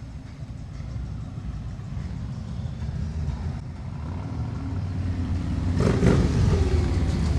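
Vehicle engines rumbling in passing street traffic, growing louder toward the end, with a sudden loud burst about six seconds in.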